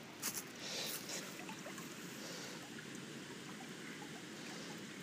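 Water flowing steadily through a pipe from a weir pool into a mill pond, running freely now that a metal plate blocking the pipe has been removed. A couple of short breaths cut in within the first second.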